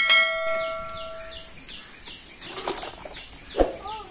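Metal cooking vessel struck by a utensil, a sharp clang that rings on in several tones and fades over about a second and a half. Faint chirps repeat about three times a second throughout, with a couple of light clinks near the end.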